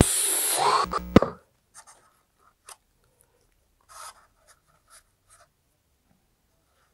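A loud rustling scrape for about the first second and a half, ending in a sharp knock. Then a few faint, brief scratches of a cotton swab rubbing along a model rocket's paper tube and launch lug, smoothing wet wood-glue fillets.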